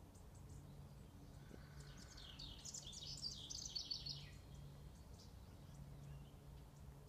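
A songbird singing one song of about two seconds, a fast run of high notes, near the middle. Faint chirps of other birds come and go over a low hum.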